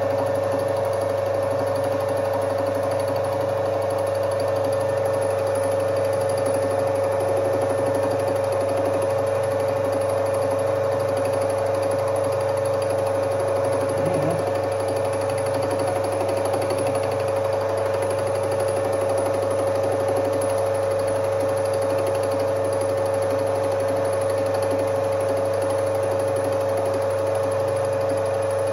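Soviet 1D601 benchtop metal lathe running steadily with a constant hum and whine from its motor and spinning chuck, while the cutter takes a light cut on a metal tube at a small feed so the machine isn't strained.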